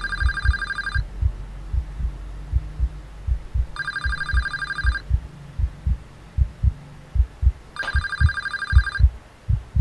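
Telephone ringing three times, each ring a trilling tone about a second long, about four seconds apart: an outgoing call ringing before the other end picks up. A steady low pulsing beat, a few pulses a second, runs underneath.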